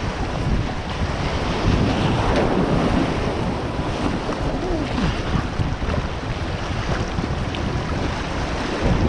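Ocean surf breaking and washing over a rocky reef, with wind buffeting the microphone.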